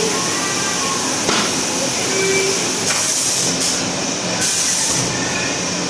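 Vertical packaging machine running with a steady mechanical hum and hiss, broken by short bursts of air hiss about three and three and a half seconds in and again for about half a second near the five-second mark.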